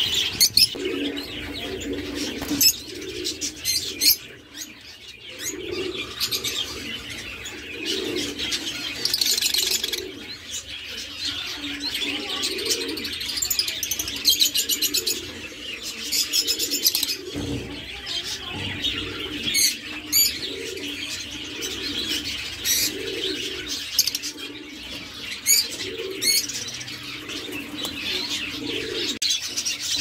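A flock of peach-faced lovebirds in an aviary chattering continuously with shrill chirps and squeaks. Low calls repeat about once a second underneath.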